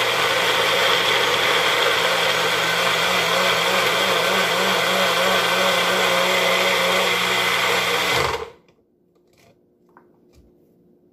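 Magic Bullet personal blender's motor running steadily under load as it purees spinach, cucumber, ginger, lemon and water, its pitch wavering slightly, then cutting off about eight seconds in.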